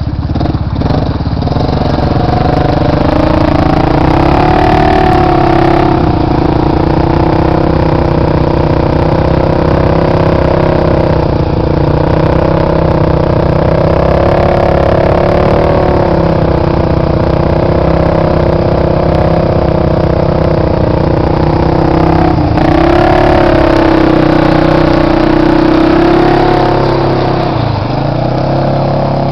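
A 2006 Yamaha Grizzly 660 ATV's single-cylinder four-stroke engine running loud under load, revving up and down over and over as it pulls through deep mud, its note rising and falling every few seconds.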